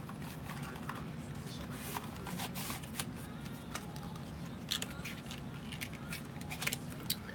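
Scattered small clicks, taps and rustles of makeup packaging being handled, over a steady low hum.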